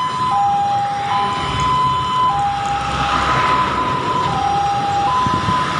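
An emergency vehicle's two-tone siren alternates between a high and a low note, each held about a second, over road traffic noise. A louder rush of passing traffic comes about three seconds in.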